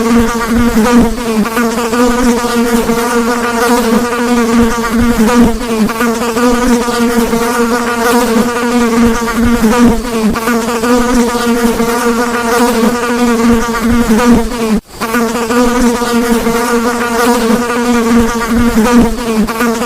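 Housefly buzzing in flight: a steady, loud wing buzz with a slightly wavering pitch, cutting out for an instant about 15 seconds in.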